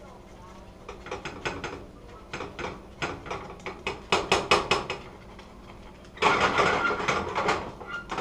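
Spatula working around the inside of a frying pan full of setting omelette egg, making a run of quick clicks and scrapes against the pan. About six seconds in comes a longer, louder harsh scrape.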